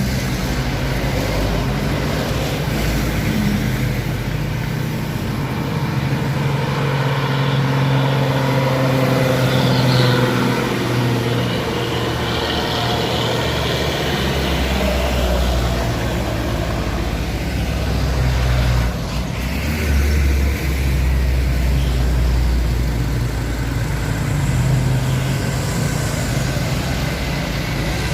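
Truck engine running on a steep uphill climb, its pitch shifting up and down as it works at the grade.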